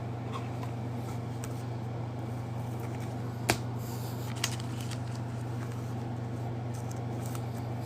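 Trading cards being handled and flipped through, with two short sharp clicks about three and a half and four and a half seconds in, over a steady low electrical hum.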